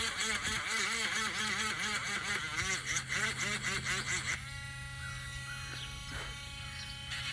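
Small electric sanding tool running, its motor pitch dipping and recovering a few times a second, then holding a steady whine from a little past halfway.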